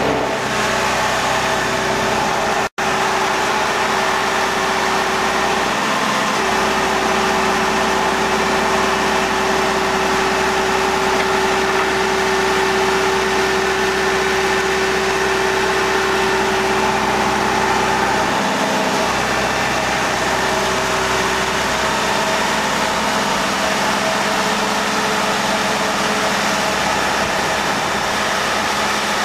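Engine of a sling boat hoist running steadily while it lifts a boat out of the water, with a held whining tone through the middle that fades out about two-thirds of the way in.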